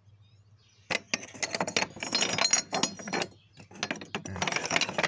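Old glass bottles clinking and knocking against each other as a hand rummages through a box of them, in two bouts: from about a second in to about three seconds, then again just before four seconds.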